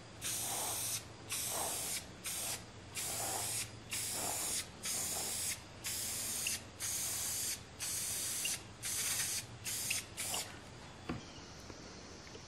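Aerosol spray paint can spraying paint onto steel locker doors in short hissing bursts, about one a second, stopping about ten seconds in.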